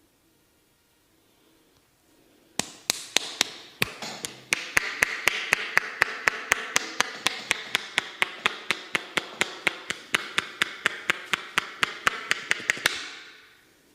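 Rapid sharp taps of a percussive head massage, about four a second, starting some two and a half seconds in and stopping about a second before the end.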